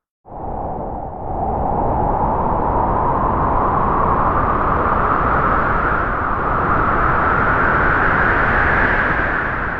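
Spooky Halloween sound effect: a long, rushing hiss that comes in suddenly, swells about a second in, rises slowly in pitch, and fades out near the end.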